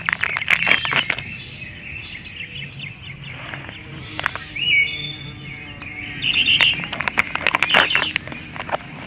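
Close-miked crunching of crunchy candy being bitten and chewed, in clusters of sharp crackly bites near the start and again in the last couple of seconds, with quieter stretches between.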